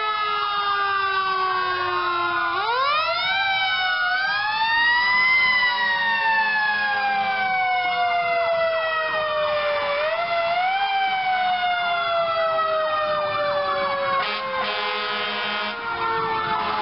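Several fire engine sirens sounding at once, overlapping: slow rising wind-ups and long falling glides in pitch. Near the end a fast warbling siren pattern cuts in for about a second and a half.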